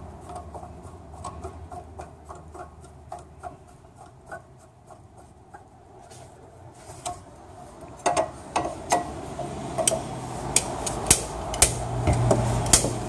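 Slide hammer pulling the extension housing (tail housing) seal out of a GM 5L40E automatic transmission. Light ticking and scraping as the puller is worked into the seal, then from about eight seconds in, sharp metallic knocks of the slide weight hitting its stop, about two a second.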